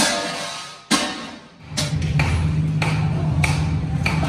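Two sharp ringing strikes about a second apart, each dying away slowly. About halfway through, a steady low electrical hum from a workshop machine starts, with light sharp metal taps over it.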